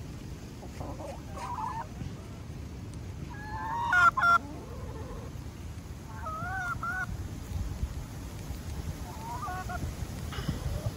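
Backyard hens calling while foraging: four short, wavering calls, the loudest about four seconds in, over a low steady rumble.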